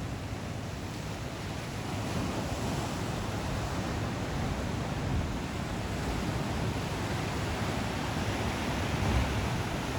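Ocean surf washing continuously onto the shore, a steady wash with a low rumble that swells a little about two seconds in and again near the end.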